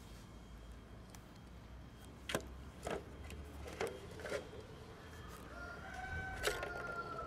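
A cat eats from an orange plastic tower toy, making scattered sharp clicks and crunches against the plastic. Over the last two seconds a long animal call holds an almost steady pitch in the background.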